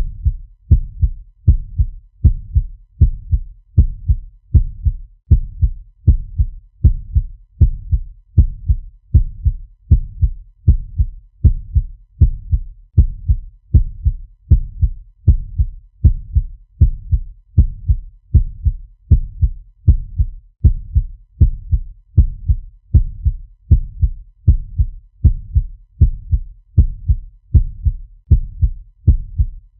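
Fast heartbeat sound effect: a steady, even rhythm of low, deep lub-dub double thumps repeating without a break.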